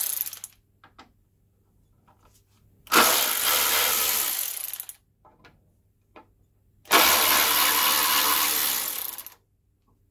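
Draper Storm Force 10.8V cordless ratchet with a hex bit running twice, about two seconds each time, turning two bolts. Both bolts turn out easily, without the tool struggling.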